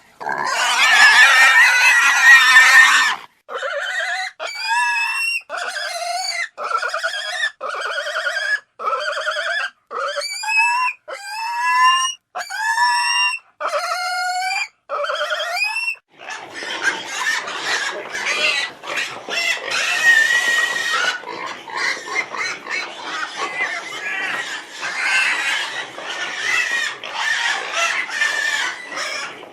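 Pigs squealing. A loud, dense squeal for the first three seconds, then about a dozen short separate high squeals, most rising in pitch. From about halfway on, a continuous chorus of many squealing pigs.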